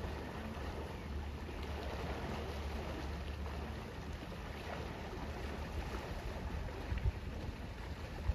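Wind buffeting the microphone over gently lapping water; no engine note stands out from the steady rumble. A short knock about seven seconds in.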